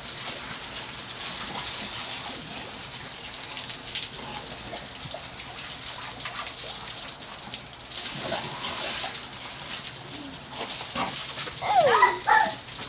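Water spraying steadily with a few short breaks, while a pit bull puppy snaps at the stream; near the end the puppy gives a short whine that falls in pitch.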